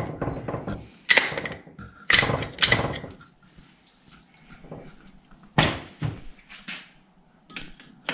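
Metal tools and engine parts being handled during a small pit bike engine teardown: about half a dozen sharp, irregular knocks and clunks with quieter rattling between them and a quieter stretch in the middle.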